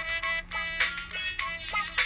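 Samsung SHW-A210S phone ringtone playing: a short electronic tune of quick pitched notes, some bending in pitch, with sharp clicks between them.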